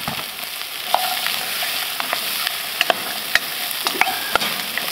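Freshly added chopped onions, celery and carrots sizzling steadily in a metal pan, with a wooden spoon scraping and tapping against the pan in irregular clicks as they are stirred.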